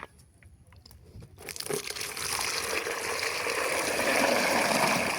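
Weed sprayer nozzle hissing out a steady spray, starting about a second and a half in and building to a constant hiss.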